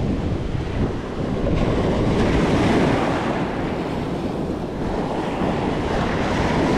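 Shore-break surf breaking and washing up the sand at the water's edge, the wash rising and falling in surges. Wind buffets the microphone with a low rumble.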